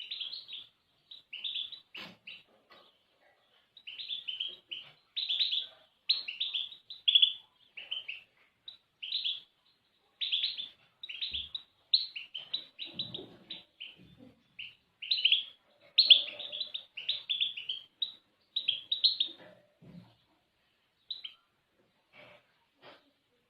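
Small songbird singing in quick runs of short, high chirping and twittering notes, with brief pauses between phrases.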